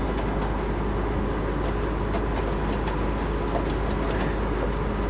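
Case IH combine engine running steadily, a constant rumble with faint scattered ticks over it.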